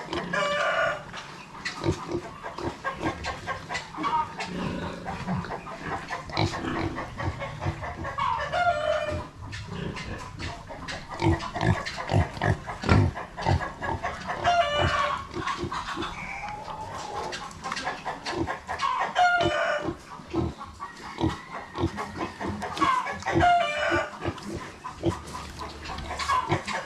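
Brown Duroc pigs grunting and nosing at a metal pen gate, with frequent knocks and rattles. Roosters crow every few seconds in the background.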